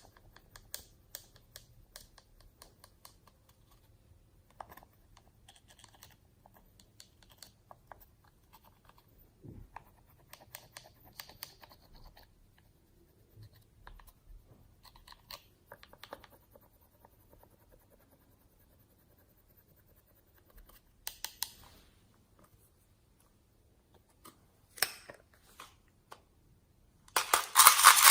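Slime being poked and pressed, giving sparse small clicks and crackles, with a much louder dense crackling near the end.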